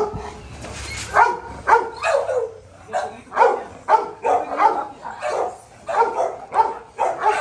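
Pit bulls barking hard and repeatedly, about two barks a second, starting about a second in, as two rival dogs that fought the night before are brought face to face on leashes.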